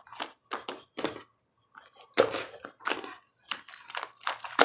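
Black pearl slime being squeezed and pressed by hand, giving a string of irregular squishes and crackly pops with a short pause about a second in.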